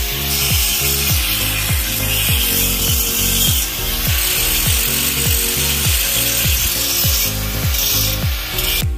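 Electric angle grinder grinding a steel window grille, heard as a steady hiss, mixed with background music that has a steady low beat about twice a second.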